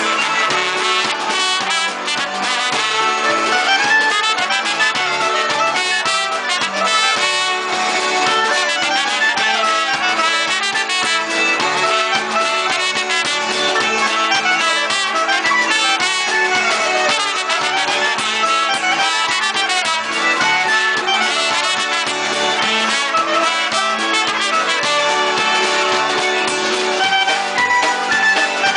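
Live polka band playing a polka: concertina, clarinet and trumpet carry the tune over drums, bass and piano.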